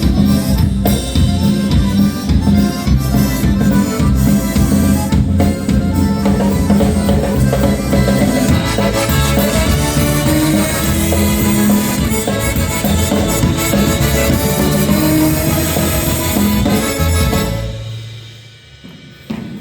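Polka band playing live with a drum kit keeping a steady beat; the music dies away about two seconds before the end.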